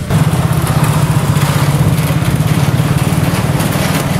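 Motorcycle engine running close by, a loud, steady low drone.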